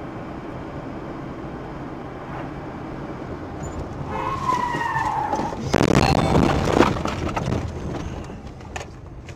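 A car braking hard: its tyres squeal with a slightly falling pitch for about a second and a half, then a louder, rough rush of skidding noise that fades out over a couple of seconds, over steady road and engine noise. A short sharp click near the end.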